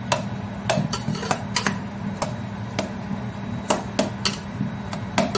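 A metal masher knocks against the bottom of a steel pot while soft boiled carrots are roughly mashed. The knocks come at about two a second, unevenly spaced, each a short sharp clack.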